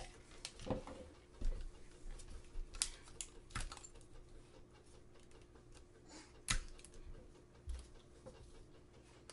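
Scattered light taps and clicks of hands handling paper, tape and a plastic cup on a tabletop, over a faint steady hum.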